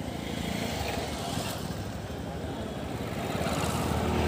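Street traffic: vehicle engines running with steady road noise.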